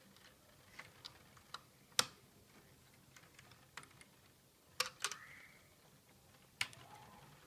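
Small Lego plastic pieces clicking and tapping as they are handled and snapped together: a scattering of sharp clicks, the loudest about two seconds in and a quick pair near five seconds.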